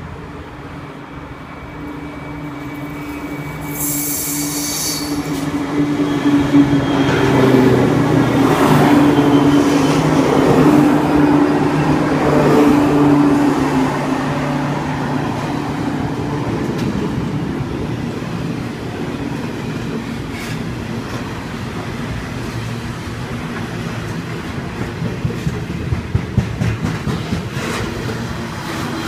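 Coal train hauled by four Pacific National 82 class diesel-electric locomotives passing close by. The locomotive engines drone loudest from about six to fourteen seconds in, then the coal hopper wagons roll past with a steady rumble and wheel clatter. A brief shrill sound comes about four seconds in.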